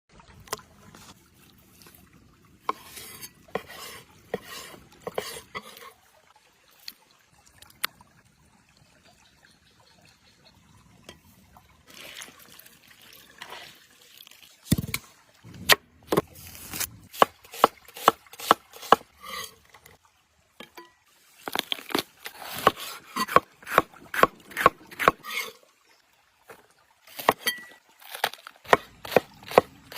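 Kitchen food preparation: runs of sharp knocks at about three a second, with rubbing, handling and liquid sounds between them.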